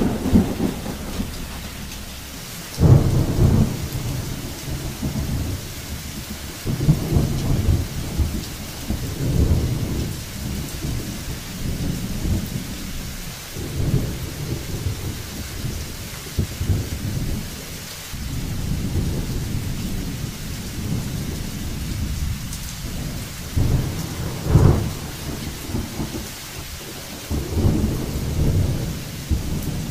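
Thunderstorm: steady rain with rolls of thunder coming every few seconds, the loudest about three seconds in and again near twenty-five seconds.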